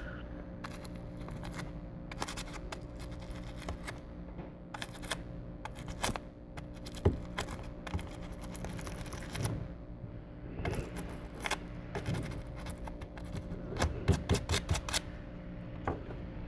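Short scratchy scrapes and light clicks in irregular clusters as a Samsung Galaxy J7's micro-USB charging port is scrubbed clean of dust, which is suspected of blocking the charger's connection. A steady low hum runs underneath.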